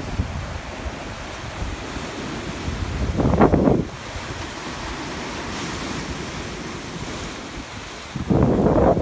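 Ocean surf washing over shoreline rocks: a steady rush of breaking waves with a low rumble, surging louder twice, about three and a half seconds in and near the end. Wind buffets the microphone.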